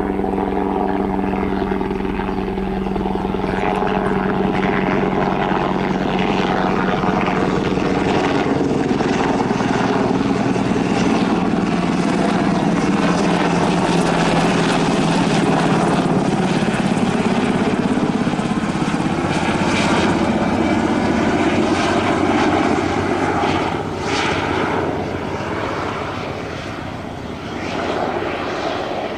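Sikorsky UH-60A Black Hawk helicopter flying overhead on its landing approach, its twin turboshaft engines and rotors making a loud, steady noise. For the first eight seconds or so it is a hum of several steady tones, which then gives way to a rougher, broader rotor noise.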